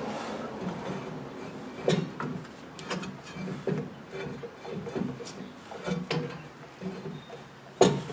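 A rear brake drum on a 1999 Toyota Tacoma being worked by hand onto the hub over new brake shoes, scraping and knocking against them in a string of irregular clunks, the loudest near the end. It hangs up on a shoe that the owner finds is not seated all the way.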